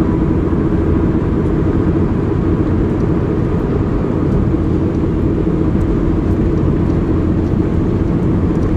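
A moving vehicle's steady engine and road noise, with a constant low hum.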